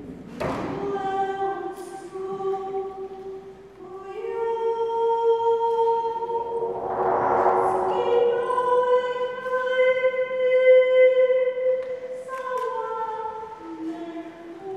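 Long, held sung notes, layered like a small choir, that step up in pitch about four seconds in and drop back near the end. A rushing swell rises and falls in the middle, and a single sharp knock sounds just after the start.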